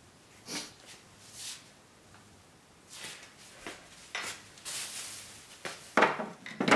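Scattered short knocks and rustles of hand tools and materials being handled and set down, with two louder clunks near the end.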